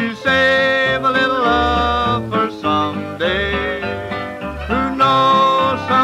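Instrumental break of a 1950 country hillbilly record played from a 78 rpm disc: a string band with plucked guitar under a lead line whose notes slide in pitch.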